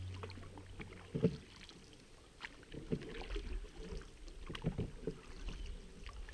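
Canoe paddling on calm river water: paddles dipping and pulling, with short uneven splashes about once a second.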